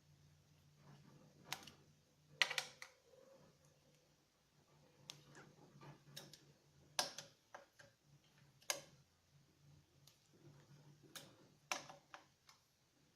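Scattered sharp metallic clicks, about a dozen at irregular intervals, as the intake manifold adapter's fasteners are tightened with a torque wrench in a crisscross pattern, over a faint steady low hum.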